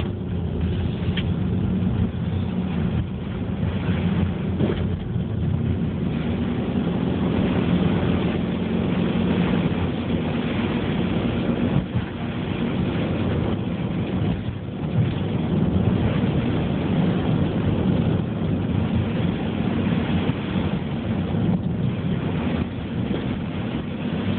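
Subaru Forester driving on a snowy city street: steady engine and road noise with the flat-four's hum shifting slightly as it goes.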